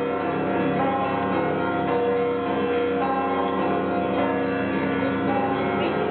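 Orthodox monastery bells ringing: several bells struck in a steady repeating pattern, about one stroke a second on the louder bells, their tones overlapping and ringing on continuously.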